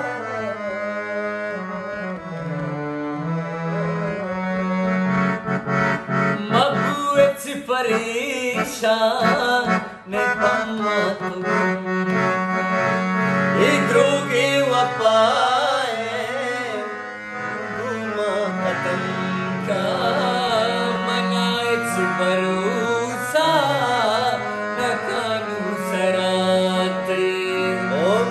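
Men singing a Balochi song with a wavering, ornamented melody over instrumental accompaniment that holds a steady low drone.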